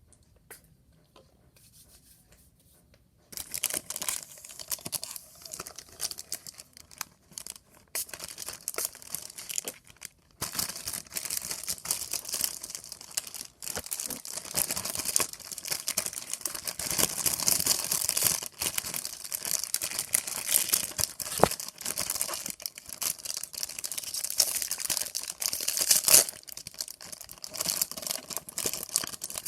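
Oreo packaging being torn open and crinkled by hand: a dense, irregular crackle of tearing and rustling wrapper and box. It starts about three seconds in and goes on with a couple of short pauses.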